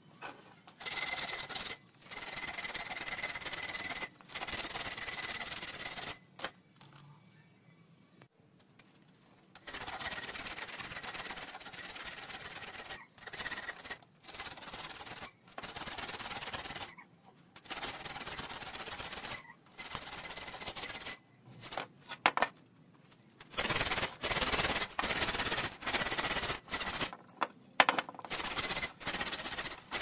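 A stripped ceiling-fan stator spun by hand on a homemade steel winding stand, its shaft rattling in the stand's holders. The rattle comes in repeated bursts of a second or two, with a faint high squeal, and gets faster and louder near the end.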